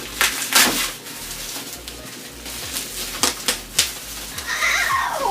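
Gift wrapping and bubble wrap being handled and pulled open, crinkling and crackling in several short bursts.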